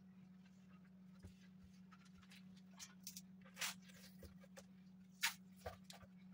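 Faint, scattered rubbing and scraping of hands working along the edge of a laminated board, heard as short dry rustles that come more often in the second half, over a steady low electrical hum.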